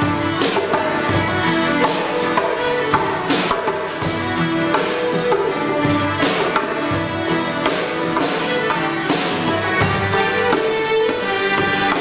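Scottish traditional tune played by a folk band: two fiddles carry the melody over piano accordion and acoustic guitar, with a steady beat on djembe and drum kit.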